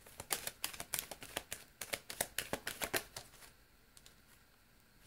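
A deck of tarot cards being shuffled in the hands: a fast, irregular run of crisp card clicks and flaps that stops about three and a half seconds in.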